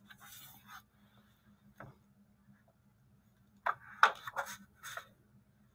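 Quiet room with a steady low hum. There is a single soft click about two seconds in, and a short run of soft handling noises and clicks in the second half.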